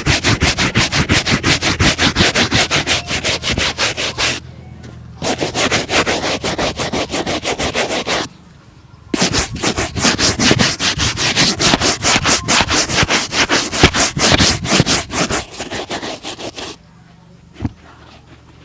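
A leather shoe being buffed to a shine with rapid back-and-forth strokes, about six a second, in three runs with short pauses between, stopping about three-quarters of the way through, followed by a couple of light clicks.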